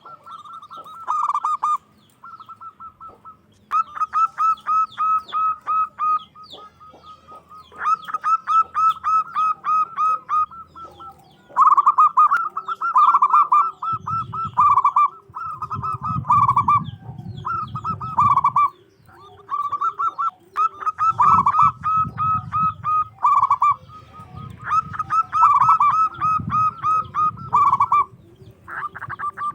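Zebra dove (perkutut) singing: rapid bursts of short, high cooing notes, phrase after phrase with brief pauses. A fainter, lower series of notes runs underneath from about a quarter of the way in, with patches of low rumble in the second half.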